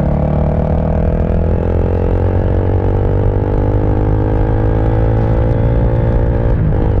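KTM RC sport bike's single-cylinder engine pulling under throttle, its pitch rising slowly and steadily as the bike accelerates, then a brief break and drop in pitch near the end as a gear is changed.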